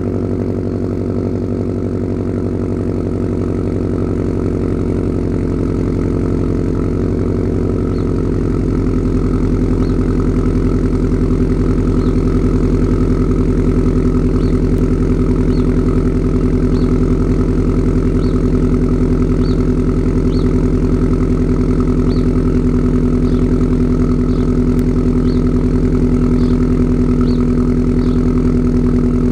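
Subaru WRX STI's turbocharged flat-four boxer engine idling steadily with its rumble, a little louder after about eight seconds, with faint light ticks.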